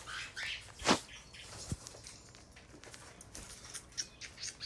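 Pet cockatiels giving a few short chirps near the start, among scattered light clicks and taps, with one sharp tap about a second in.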